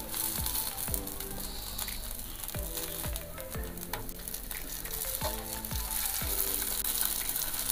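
Oil sizzling steadily under potato-poha tikkis shallow-frying on a dosa tawa, with background music and a steady beat playing over it.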